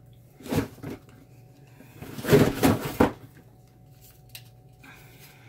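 Rummaging and handling noises as a small boxed item is fetched: a soft knock about half a second in, then a louder spell of rustling and knocking around two to three seconds in, ending in a sharp knock.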